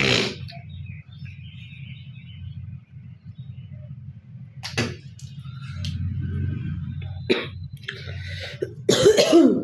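A woman coughing and hawking up phlegm: short harsh coughs a few seconds apart, then a longer, louder hack near the end. A steady low hum runs underneath.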